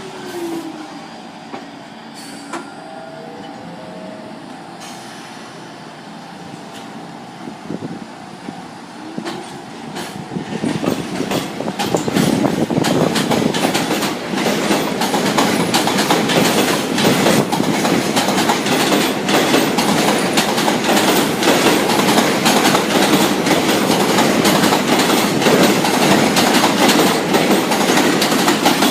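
New York City subway train on the Liberty Avenue line, faint at first with light squeals, then growing loud about eleven seconds in and running on with a rapid clatter of wheels over the rail joints.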